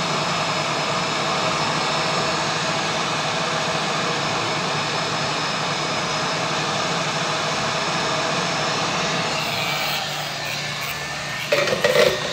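Hot air rework gun blowing a steady rush of air, with a low hum, onto a motherboard chip as its solder is reflowed. About ten seconds in the airflow noise drops away, and a few sharp knocks follow near the end.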